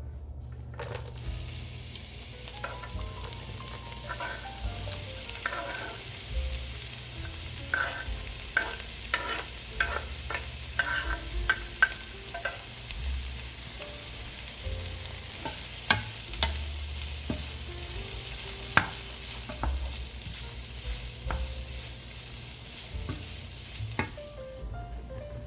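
Food sizzling as it fries in a pan, with a utensil stirring and knocking against the pan now and then. The sizzle starts about a second in and cuts off shortly before the end.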